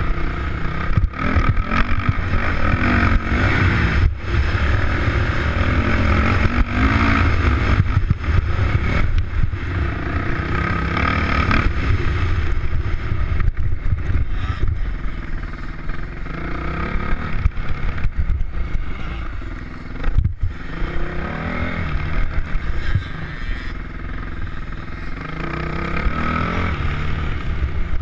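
Off-road motorcycle engine ridden hard over a dirt track, heard from the bike itself, its pitch rising and falling again and again with the throttle. Heavy wind rumble on the microphone and frequent sharp knocks run through it.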